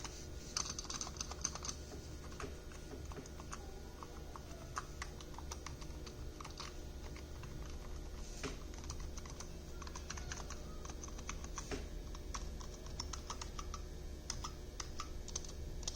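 Typing on a Razer Huntsman Mini keyboard with red linear optical switches: an irregular stream of short key clacks, busiest at the start and again in the second half, over a faint steady low hum.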